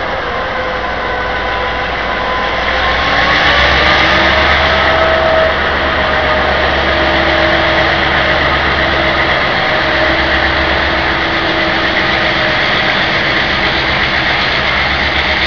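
Taiwan Railway R100-class diesel-electric locomotive R121 pulling a Fu-Hsing train out of the station. Its engine rises in pitch and loudness over the first few seconds, then runs steadily as the locomotive and the cars behind it roll past.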